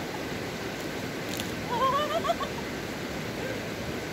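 A stream rushing steadily, with a short wavering voice sound about halfway through.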